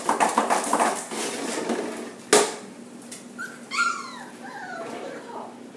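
Puppies playing on a tile floor: rapid clattering and clicking in the first second, as a plastic bottle is set down among them, and a single sharp knock a little after two seconds in. Then a puppy gives a short whine near the four-second mark.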